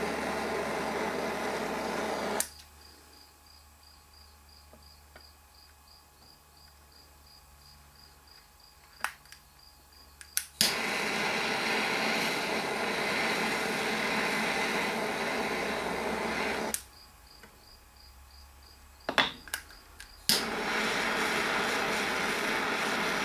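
Refillable butane torch hissing in three spells, each relit with a click or two and shut off abruptly, as it heats solder onto a throttle cable end.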